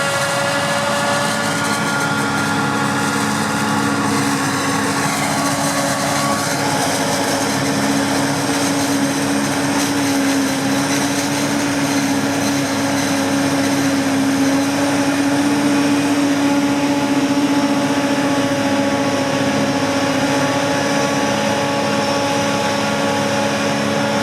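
Engine of maize-harvesting farm machinery running steadily, a constant drone with a steady whine.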